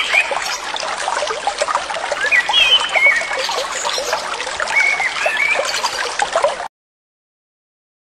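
Stream of water rushing over rocks, with birds chirping a few times above it. The sound cuts off suddenly about seven seconds in.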